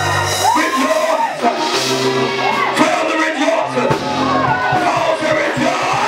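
Gospel praise music in a church service: held low chords with several voices singing and calling out over them.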